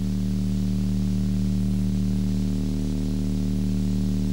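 Steady electrical hum with a stack of buzzing overtones, unchanging, and no other sound over it.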